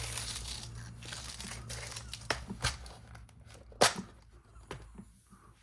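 Plastic hardware bag crinkling and rustling as small screws are fished out of it, with a few sharp clicks and one louder tap about four seconds in; the rustling dies down in the last second or so.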